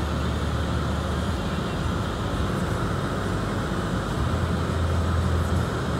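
Steady low rumble and hiss of a car with its engine running, heard from inside the cabin.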